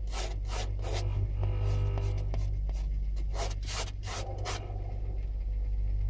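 A fingernail scratching a thin skin of ice on a refrigerator's freezer wall: a series of short, crisp scrapes over a steady low hum. The fresh ice is the sign that the repaired refrigerator is cooling.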